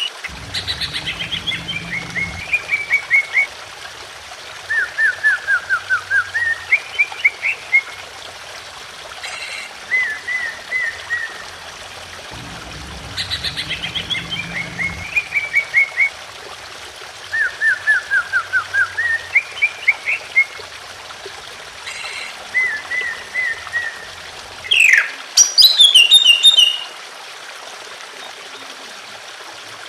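Green leafbird (cucak ijo) song: phrases of quick, clipped notes in short runs that slide downward and then climb again. The same sequence repeats about twelve seconds later, and near the end there is a louder, sharper burst of high notes. A steady trickle of water runs underneath.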